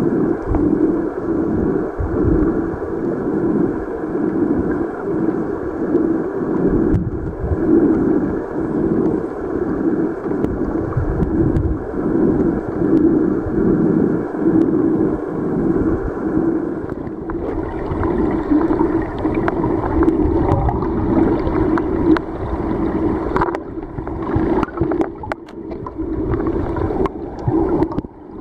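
Creek water rushing and gurgling, heard muffled through an underwater camera, with a rumble that surges over and over. The sound turns brighter about two-thirds of the way through, with scattered clicks and taps after that.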